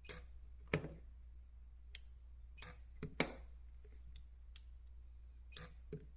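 Spot-welder probe tips being set down on nickel strip over 18650 cells, giving a scattering of light clicks and taps. Two sharper clicks come about three quarters of a second and three seconds in.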